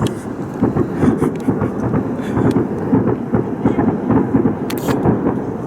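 Continuous rapid series of loud, unseen bangs echoing around buildings and merging into a rolling rumble, with a sharper crack at the start and another about five seconds in.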